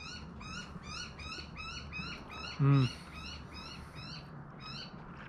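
An animal calling in a rapid, even series of short, high notes, about five a second, which stops shortly before the end.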